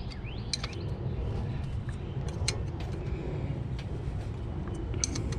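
Occasional light metallic clicks of a box-end wrench on the brake caliper's 14 mm banjo bolt as it is tightened, over a steady low hum.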